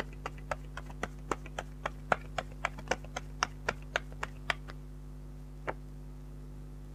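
Tarot cards being snapped or tapped down one at a time in a steady rhythm of about four sharp clicks a second, stopping after about four and a half seconds, with one more click near the end. A low mains hum sits underneath.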